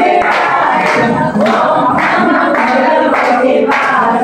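A group of women singing a Navratri song together, with some hand clapping.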